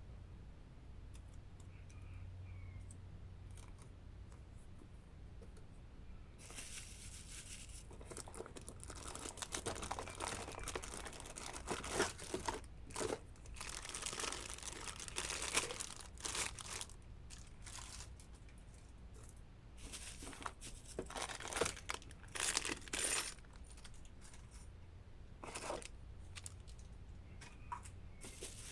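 Packaging being unwrapped by hand: a few faint handling ticks, then about six seconds in a run of crinkling and tearing of wrapping, with several sharp louder rips.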